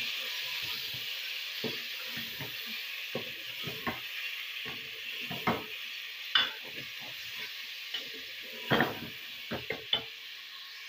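Raw chicken pieces sizzling in hot oil with browned onions in an aluminium pressure cooker, stirred with a wooden spoon. A steady sizzle runs under irregular scrapes and knocks of the spoon against the pot, with a few sharper knocks in the second half.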